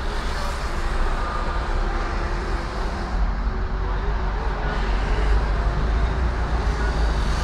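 Steady low rumble of a car's engine and tyres heard from inside the cabin while driving, with the noise of the surrounding traffic around it.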